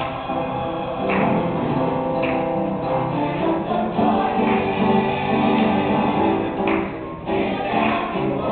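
High school gospel choir singing a gospel song in full voice, with instrumental backing.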